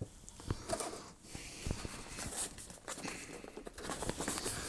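Cardboard product box being handled, a white inner box slid out of its printed outer box, with soft scraping, rustling and light knocks at irregular intervals.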